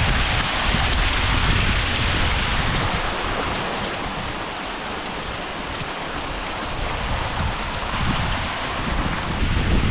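Small waterfall splashing down rocks close by, a steady rushing of water that starts abruptly. Wind buffets the microphone with low rumbling throughout.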